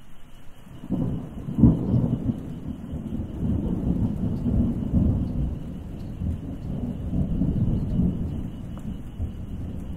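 Thunder: a sudden clap about a second and a half in, rolling on into a long low rumble that swells and fades, over a faint hiss of rain.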